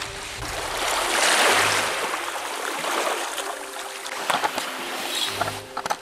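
Small sea waves washing onto the shore, one wash swelling to its loudest about a second and a half in, with a few sharp clicks near the end.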